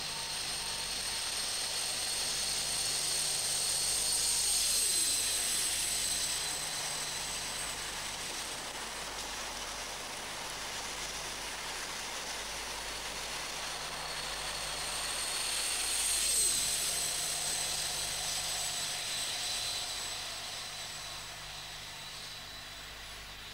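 A British Rail HST (InterCity 125) passes through at speed, a rushing engine and wheel noise with a high whine that swells to a peak about five seconds in and drops in pitch as it goes by. A second express train passes at speed about sixteen seconds in, with the same swell and drop in pitch, then fades away.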